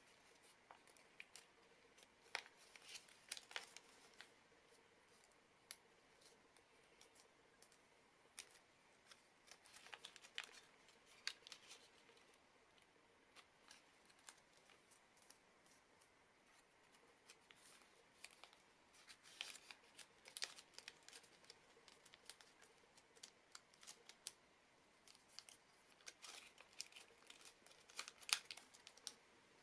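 Faint crackling and rustling of origami paper as it is folded and creased by hand, heard as scattered short, sharp clicks.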